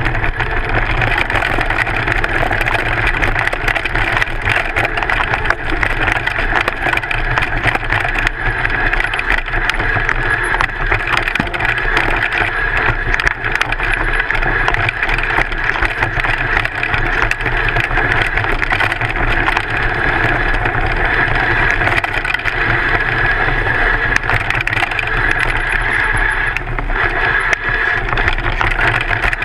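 Mountain bike running fast down a dirt forest trail, picked up close to the front wheel on the fork: a steady rush of tyre and wind noise with a continual rattle of small knocks as the bike goes over stones and roots.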